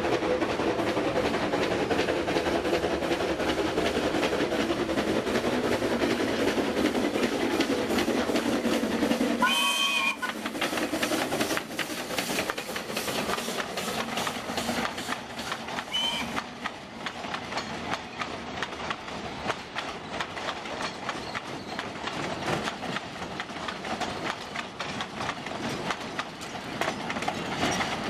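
A 762 mm narrow-gauge C2 class 0-8-0 coal-fired steam locomotive working a coal train as it approaches and passes close by. It gives a short whistle about ten seconds in and a briefer one a few seconds later, then its wagons clatter past over the rail joints in a rapid, even rhythm.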